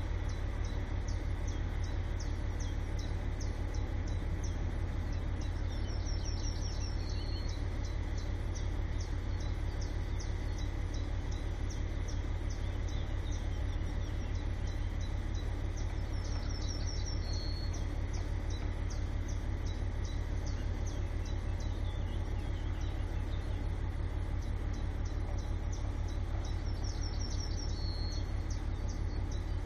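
A songbird sings a short high phrase three times, about ten seconds apart, over fast faint chirping. A steady low rumble runs under it all.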